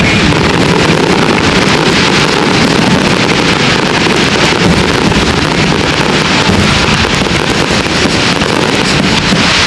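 A fireworks barrage keeps up a loud, dense, continuous crackle with no break.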